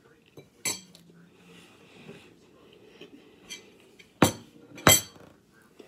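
Fork or spoon clinking against a dish three times, once near the start and twice in quick succession, louder, about four to five seconds in.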